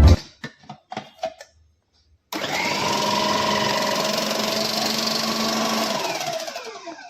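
A few light clicks, then a Preethi Zodiac 750 W mixer grinder motor starts at full speed. It runs with a steady whine for about four seconds, then is switched off, and the pitch falls as it spins down.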